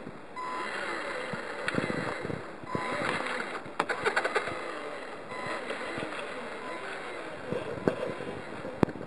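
Scale RC crawler's electric motor and gearbox whining, rising and falling with the throttle, over a rough scrabbling of tyres on the forest floor. A quick run of clicks about four seconds in and a sharp knock near the end.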